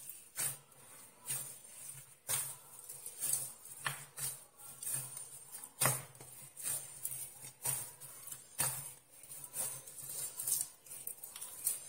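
Soft dough being kneaded by hand in a glazed earthenware dish: irregular dull slaps and knocks as it is pushed and turned against the clay, about one every half second to a second.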